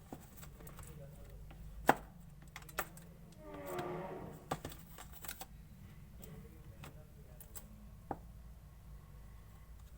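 Clear slime being mixed and handled: scattered sharp clicks and pops, with a brief pitched sound about four seconds in.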